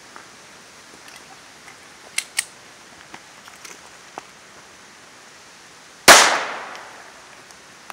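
A single .22 caliber pistol shot about six seconds in: one sharp crack with a short echo trailing off over about a second. Two light clicks come about two seconds in.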